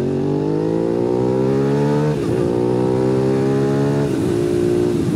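A 2005 Suzuki SV650's 645 cc V-twin engine pulls hard under acceleration, its pitch rising. It changes up a gear twice, about two and four seconds in; each shift is a brief break followed by a lower pitch. It then holds steady.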